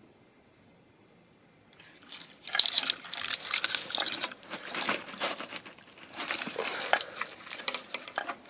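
Plastic wiring-harness connectors and loose wires being handled and plugged together: a busy run of crinkling rustles and small clicks, starting about two seconds in.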